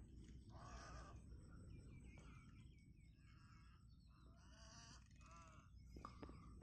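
Birds at a coastal wetland giving a series of short, harsh calls, one after another, faint against a steady low rumble.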